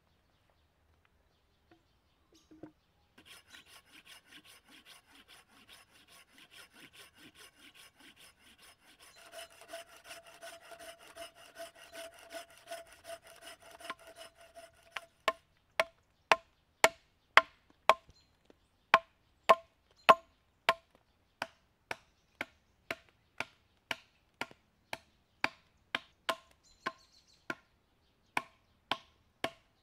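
Hand saw cutting through a log in even back-and-forth strokes, the blade ringing in the later strokes. About halfway through it gives way to a steady run of loud hammer blows on wood, about one and a half a second, each with a short ring.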